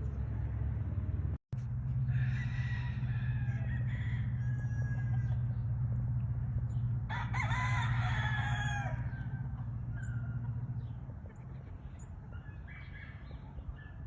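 Roosters crowing, three crows in turn, the loudest about seven seconds in and a faint one near the end, over a steady low hum that fades out about eleven seconds in.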